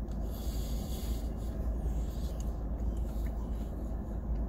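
Steady low rumble of an idling car heard inside the cabin, with a few faint small ticks.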